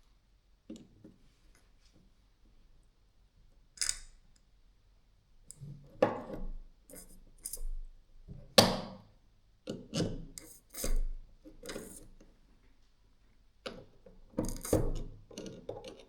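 Hammer drill parts handled during reassembly: irregular knocks, clicks and rubbing as pieces are fitted together, with quiet gaps in between and the sharpest knock about halfway through.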